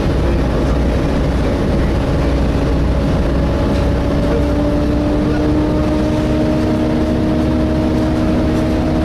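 Volvo B7TL double-decker bus under way, its engine cooling fan giving a steady hoover-like whine over the engine and road rumble. The whine's pitch creeps slightly higher.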